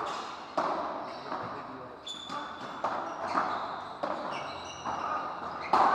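Padel rally: a ball struck by solid padel rackets and bouncing off the court floor and walls, about eight or nine sharp pocks that echo in a large hall, the loudest near the end. Short high shoe squeaks sound between the hits.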